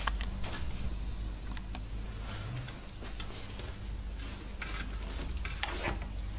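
Light clicks and short scraping rustles of wire and a soldering iron being handled over a plastic telephone-handset shell, the louder rustles about two thirds of the way through, over a steady low hum.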